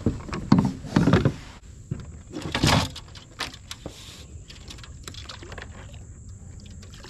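Handling noise in a fishing kayak: a few knocks and bumps against the hull in the first second and a half, a short loud rushing burst a little under three seconds in, then scattered light clicks.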